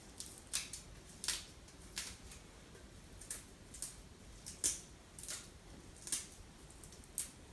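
Fresh curly kale leaves being torn and stripped off their tough stems by hand: a series of short, crisp tearing and snapping sounds at irregular spacing, about one or two a second.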